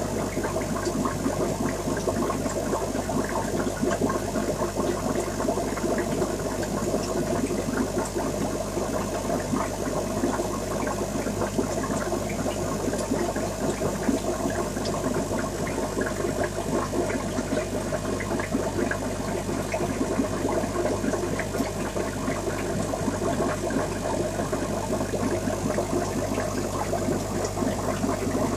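Aquarium water bubbling and trickling steadily over a constant low hum, the sound of the tank's running filtration or aeration.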